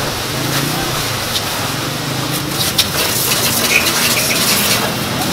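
Water spraying from a car-wash hose wand onto a car's open engine bay: a steady hiss of spray, with a few sharp ticks near the middle.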